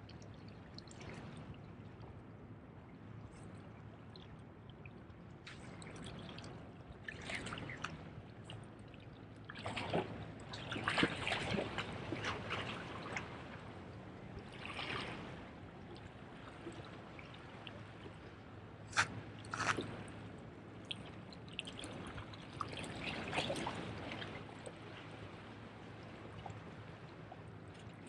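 Small waves washing and splashing among the rocks of a jetty, surging irregularly every few seconds, with one sharp splash about two-thirds of the way through.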